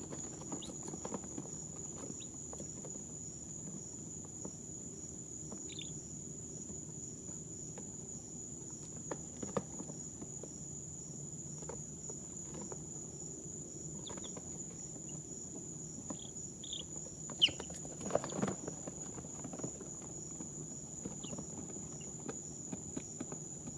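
Two-day-old chicks in a brooder giving a few short, soft peeps, scattered among small ticks and scratches, with a louder flurry of taps about two-thirds of the way through. A steady high-pitched whine and a low hum run underneath.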